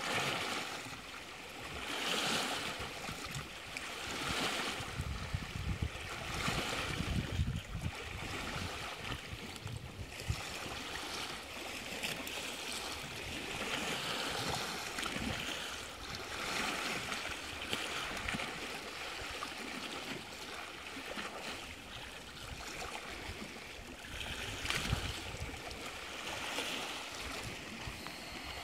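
Small waves on Lake Superior lapping and sloshing against a rock shoreline, each wash swelling and fading every couple of seconds.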